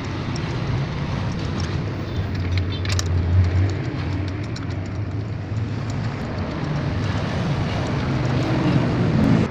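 A motor vehicle running nearby, its rumble swelling about three seconds in, with a few faint metallic clicks of hand work on top.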